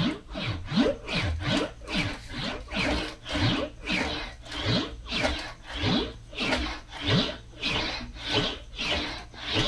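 English wheel rolling a sheet-metal cab corner panel back and forth between its upper wheel and flat lower anvil wheel: a rhythmic rubbing rumble, about one and a half passes a second.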